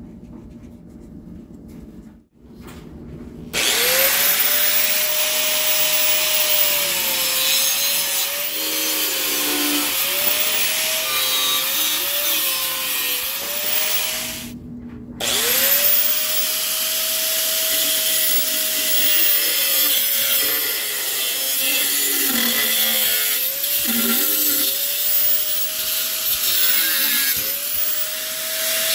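Angle grinder cutting through perforated steel angle stock: the motor's whine sags in pitch each time the wheel bites into the metal and recovers as the pressure eases. It starts about three and a half seconds in, stops briefly around fourteen seconds, then starts again and keeps cutting.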